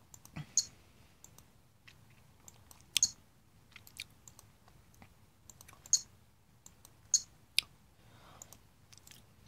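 Computer mouse clicking: a scattered handful of short, sharp clicks at irregular intervals over faint room noise.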